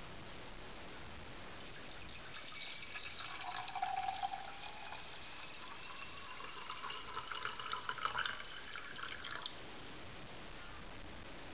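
Water poured from a glass jug into a small stainless steel electric Turkish coffee pot (Sinbo SCM 2922 cezve), splashing into the metal pot. The pitch rises slowly as the pot fills, and the pour stops suddenly about nine and a half seconds in.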